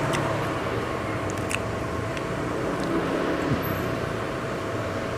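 Steady background noise of traffic and room hum, with a faint constant tone and a few light clicks.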